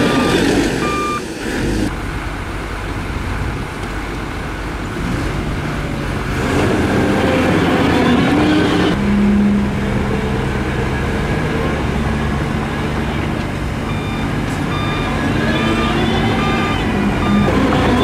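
Heavy diesel engines of a Scania tipper truck and a bulldozer running, the truck's engine held at raised revs to drive the hydraulics as its tipper body lifts. A backup alarm beeps several times near the end.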